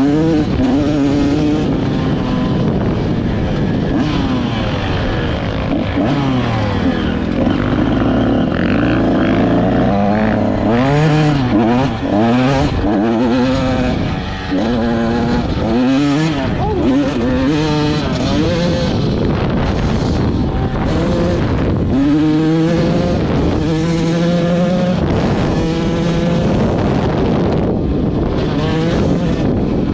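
Two-stroke off-road motorcycle engine being ridden hard, its pitch rising and falling over and over as the throttle opens and closes and the gears change.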